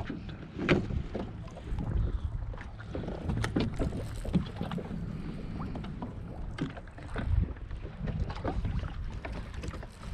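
Sounds aboard a fishing kayak on the water: irregular knocks and clicks of gear against the hull over a steady low rumble of water and wind buffeting the microphone.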